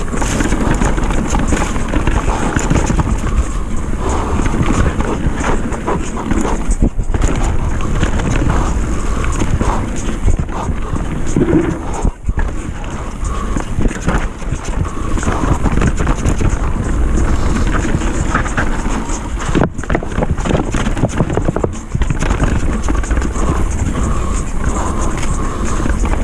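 Mountain bike descending a rough trail of wet dirt and rock: continuous tyre noise with the bike's chain and parts rattling and clattering over bumps, and wind rumbling on the camera microphone.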